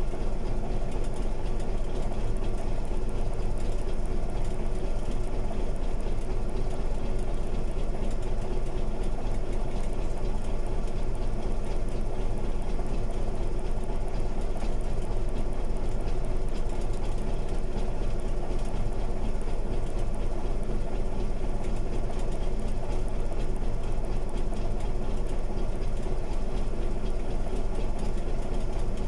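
Crawler bulldozer's diesel engine running steadily, with an even, unchanging low drone.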